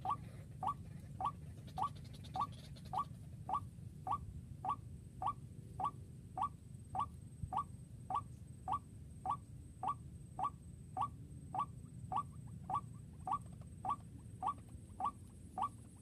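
White-breasted waterhen (ruak-ruak) calling: one short rising note repeated over and over with clockwork regularity, about one and a half to two a second.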